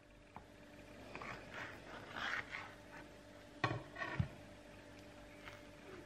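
Two halves of a freshly cut loaf of handmade soap being slid and turned on a tabletop: soft rubbing and scraping for a couple of seconds, then two light knocks a little past halfway as a half is set down.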